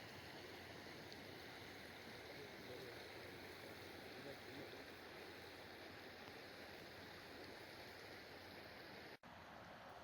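Faint, steady rush of flowing or bubbling water, briefly cutting out about nine seconds in.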